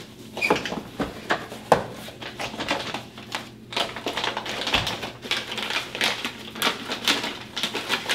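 A shipping box and its packing being opened and handled by hand: an irregular run of clicks, taps and rustles, with one dull thump about two-thirds of the way through.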